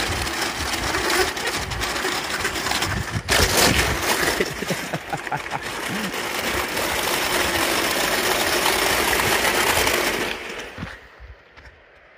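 Rollers of a long roller slide rattling continuously under a rider sliding down it. The clatter stops abruptly a little before the end.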